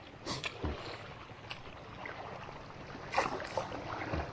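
Faint steady outdoor background noise, with a few soft knocks and handling sounds scattered through it.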